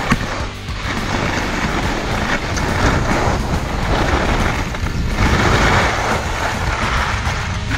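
Downhill run on snow: wind rushing over the microphone with the rough scraping hiss of edges on packed snow, swelling and fading every two to three seconds.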